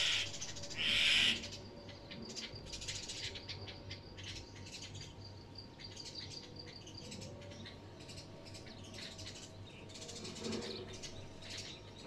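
Sparrows chirping busily, many short, quick high chirps overlapping, with a brief louder rustle about a second in.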